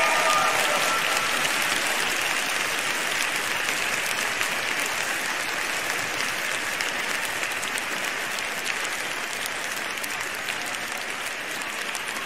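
Arena audience applauding, the clapping slowly growing quieter.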